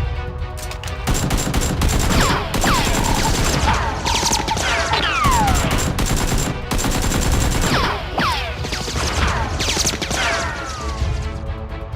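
Rapid bursts of gunfire sound effects, like automatic weapons firing, with several falling whistles like ricochets mixed in.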